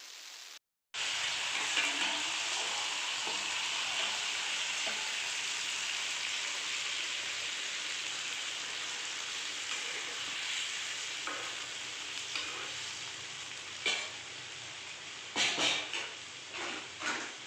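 Hilsa fish steaks coated in mustard paste sizzling loudly in hot oil in a pot. The sizzle starts suddenly about a second in and slowly eases off. A few clinks of a steel utensil against the pot come near the end.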